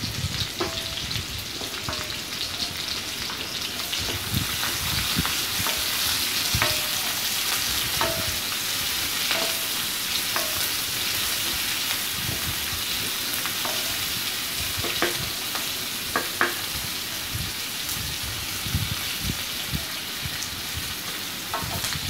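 Sliced onions and green chillies sizzling in hot oil in a kadai, sautéing until soft, with a spoon scraping and knocking against the pan now and then as they are stirred.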